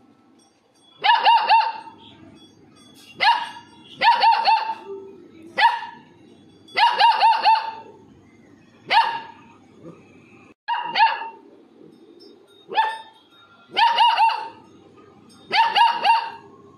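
Labrador puppy barking repeatedly: about ten short bursts of high-pitched barks, each burst one to four barks that drop slightly in pitch, every second or two.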